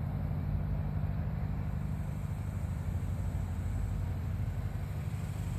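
Steady low mechanical hum with a rumble beneath it, even throughout.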